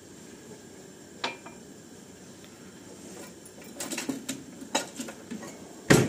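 Metal utensils clinking and clattering against stainless steel cooking pans on a gas stove: a single clink about a second in, a run of clatters from about four seconds, and a loud knock just before the end.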